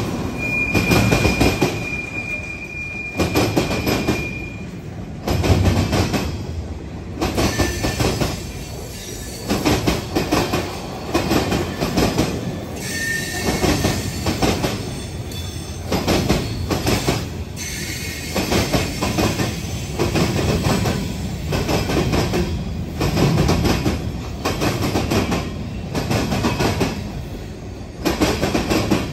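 CSX mixed freight train rolling past, its car wheels clattering over the rail joints in a repeating rhythm about every second and a half. A high steady wheel squeal sounds from about half a second in for some four seconds, and brief shorter squeals come later.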